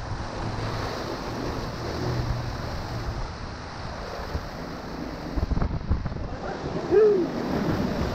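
Colorado River whitewater rushing and splashing around a raft running a rapid, with wind buffeting the microphone. A short shout rises and falls about seven seconds in.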